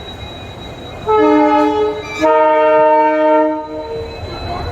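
WDP4D diesel locomotive's air horn sounding two blasts: a shorter one about a second in, then a longer, louder one right after, each a steady multi-note chord.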